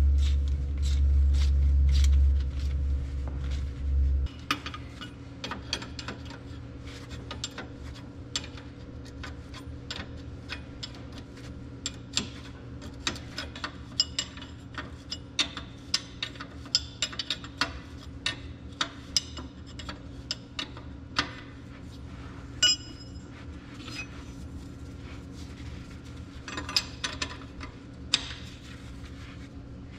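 Hand tools clinking against metal, with many scattered sharp clicks from a socket wrench and its parts, as a tractor's brake housing is bolted up. A deep low rumble fills the first four seconds.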